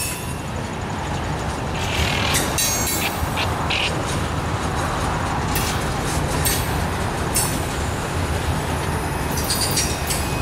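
Freight train's tank cars and covered hoppers rolling past: a steady rumble of steel wheels on rail with irregular clacks as the wheels cross rail joints. Brief high-pitched wheel squeals come between about two and four seconds in.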